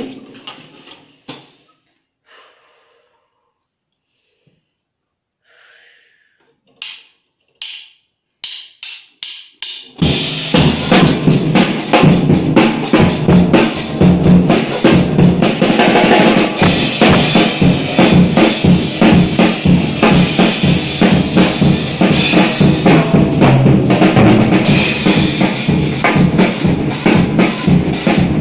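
Acoustic drum kit played with sticks. A few scattered hits and a short run of strokes come first, then about ten seconds in it breaks into loud, fast, continuous drumming on the drums and cymbals.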